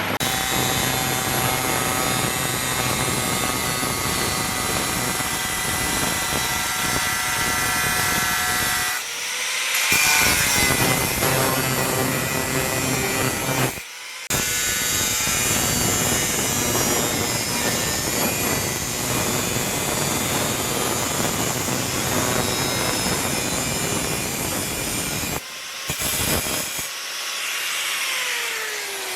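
Electric angle grinder working steel: a dense grinding hiss over a steady high whine, stopping abruptly a few times. Near the end the whine falls in pitch as the disc spins down.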